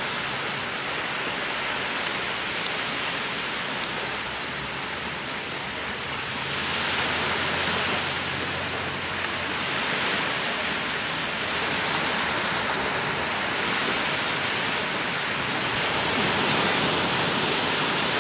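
Small sea waves breaking and washing up the sandy shore: a steady rush of surf that swells every few seconds.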